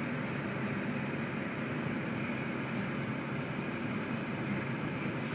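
Steady running noise of a car driving, heard from inside the cabin.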